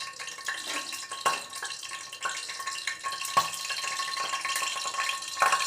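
Oil and ghee heating in a kadai, sizzling softly with scattered small crackles and a few louder pops.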